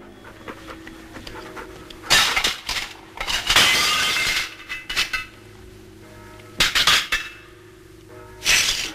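China plates smashing on a tiled floor: several loud crashes of breaking crockery, with shards clattering, the biggest about two and three and a half seconds in.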